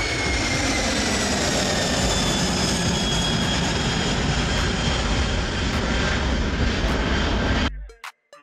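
Boeing 747's four jet engines at climb power as the airliner climbs out after takeoff: a steady loud rush with a high whine that slowly falls in pitch. It cuts off suddenly near the end.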